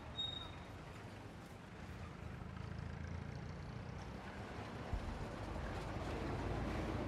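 Low rumble of a vehicle engine, growing louder over the last two seconds, with a brief high chirp just after the start and a single knock about five seconds in.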